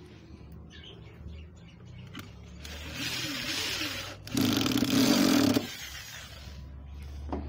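Corded electric drill driving a screw into pallet wood. About three seconds in there is a softer run with the motor speed rising and falling, then a louder, steady burst of about a second.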